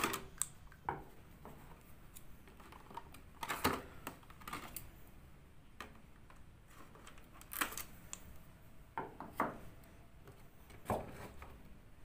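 Scissors cutting through a stiff clear plastic blister package, with the plastic snapping and crackling as it is handled: a string of separate clicks and crinkles, the sharpest about three and a half seconds in and again several times near the end.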